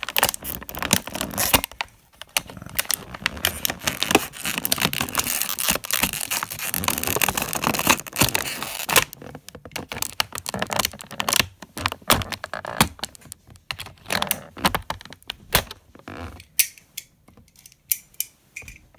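Action-figure packaging being handled and opened: dense crackling and rustling of stiff plastic and cardboard for about the first half, then scattered clicks and taps of plastic parts.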